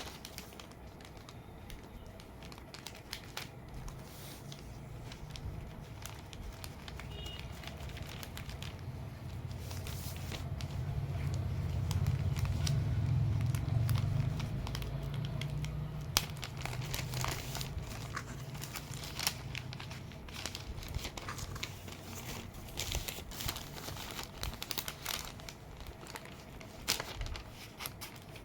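A vinyl record's packaging being handled and opened: wrapping crinkling and tearing, with scattered sharp clicks and taps. A low rumble swells about halfway through.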